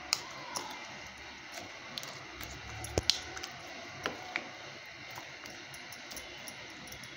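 A spoon stirring chopped vegetables through a thick yogurt marinade in a ceramic bowl, with scattered light clicks of the spoon against the bowl; the sharpest comes a little before halfway.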